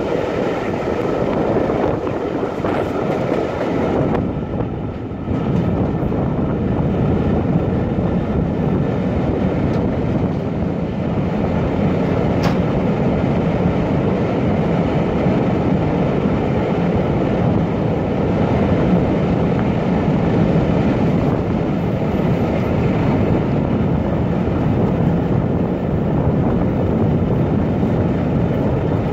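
Locomotive-hauled passenger coaches running at speed, heard from an open window: a steady rumble of wheels on the rails mixed with wind rush. About five seconds in the sound grows louder and deeper as the train enters a tunnel.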